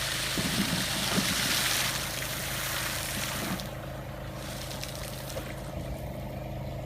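A steady low hum under a rushing hiss, the hiss thinning out about halfway through.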